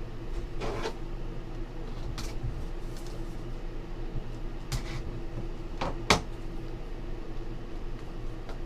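Hands opening and handling a small cardboard box of trading cards: a few short taps and clicks of the box, the loudest about six seconds in, over a steady background hum.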